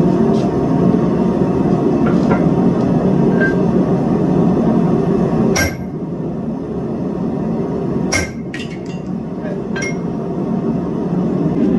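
Steel tools clinking on a steel anvil while a hot steel disc is handled for forging: one sharp clink about five and a half seconds in, another about eight seconds in, then a few lighter ticks. A steady low rumble of shop noise runs underneath.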